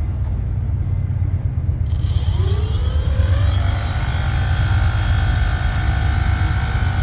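A 900kv electric motor spins up an 11x4 3D-printed propeller about two seconds in. Its pitch rises briefly and then holds steady at quarter throttle, with a high, thin steady whine above it. A steady low rumble runs underneath throughout.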